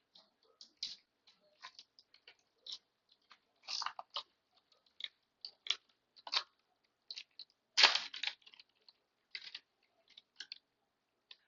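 2024 Topps Series One baseball cards and their pack being handled: irregular short scrapes, flicks and crinkles as cards are slid off the stack one by one. The loudest rustle comes about two-thirds of the way through.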